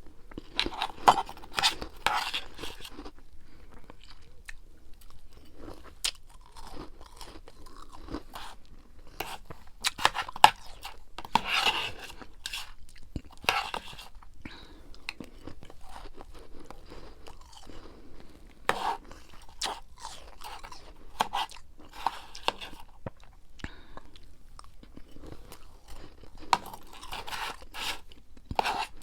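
Close-up crunching and chewing of powdery freezer frost, in bursts of sharp crunches with short pauses between mouthfuls.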